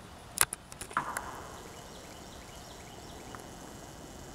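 Quiet outdoor background with a few sharp clicks and knocks in the first second or so, then a faint steady hush.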